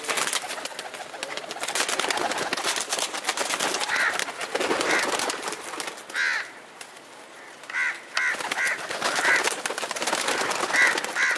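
A flock of pigeons in a wire aviary, with wing flaps and rustling throughout. A run of short, high chirps, often in quick pairs, comes from about four seconds in onward.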